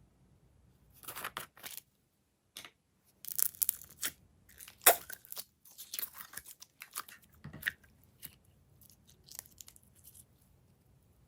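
Glossy slime being mixed and squished, giving irregular sticky crackles and pops in clusters, the loudest about halfway through.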